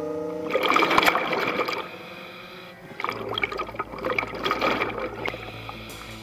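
Underwater bubbling in irregular bursts, typical of a scuba diver's exhaled bubbles from the regulator: one burst about half a second in, then a longer run of bursts from about three seconds. A steady droning tone cuts off half a second in, and a steady low hum comes in with the second run of bubbles.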